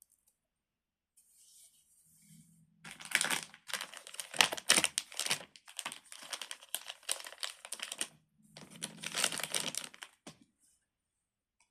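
Plastic packaging crinkling and rustling as it is handled, in irregular bursts lasting several seconds, starting about three seconds in.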